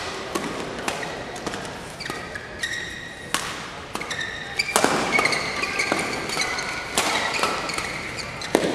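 Badminton rally: rackets striking the shuttlecock with sharp smacks about every one and a half to two seconds, the clearest from about three seconds in, with players' shoes squeaking on the court floor between the hits.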